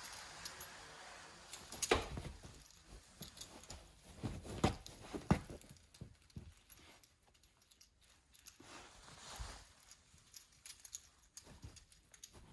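A Labrador puppy mouthing, tugging and pawing at a knotted cotton tea towel on a padded fabric dog bed: scattered rustles and soft clicks, with a few sharper knocks about two seconds in and again near five seconds.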